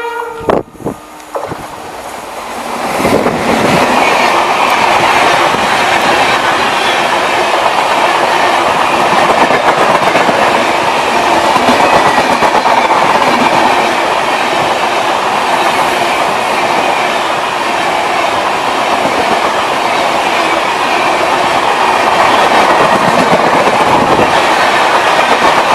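Express passenger train hauled by a WAP-7 electric locomotive running through at speed. A few sharp knocks come first, then a loud, steady rush of wheels clattering over the rails builds up over about three seconds and holds.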